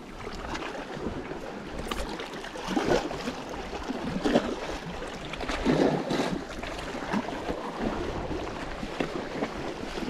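Sea water washing and splashing against shoreline rocks, with wind buffeting the microphone and a few louder swells.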